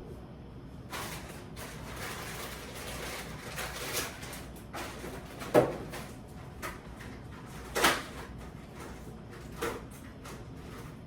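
Groceries being handled and put away in a refrigerator: rustling, with a few sharp knocks as items are set down or fridge doors and drawers are bumped. The loudest knock comes about halfway through.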